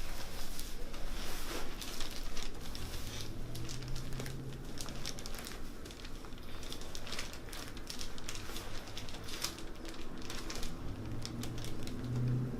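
Rustling and crinkling as a patient lying on a treatment table is handled and shifts position, in short, irregular scrapes.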